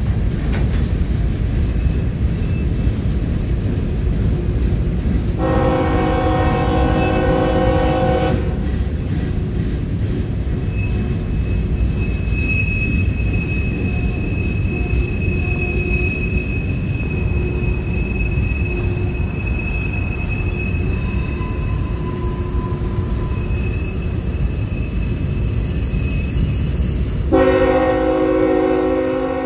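Passing freight train's loaded hopper cars rumbling steadily over the rails, with a thin high wheel squeal through the middle stretch. A diesel locomotive's multi-note air horn blows for about three seconds about five seconds in, and starts again near the end, louder.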